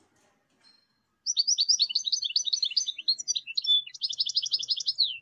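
Common linnet singing: a fast, twittering run of rapid high notes that starts about a second in and goes on without a break, with a short falling note near the end.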